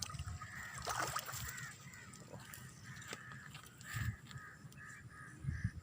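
An animal calling outdoors: a regular series of short, high notes, about three a second, with a louder sweeping call about a second in.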